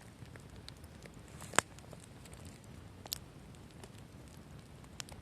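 Wood campfire crackling, with sharp pops about one and a half seconds in, about three seconds in and near the end, the first the loudest, over a low steady hiss of the burning fire.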